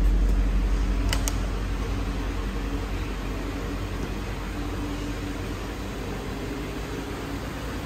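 2004 Ford Thunderbird's 3.9-litre V8 engine idling steadily, a little louder at first and then easing to an even level. A couple of faint clicks about a second in.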